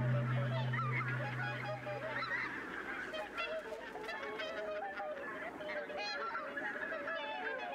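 A flock of waterfowl calling, many short overlapping calls at once, as a low droning tone fades away over the first two or three seconds.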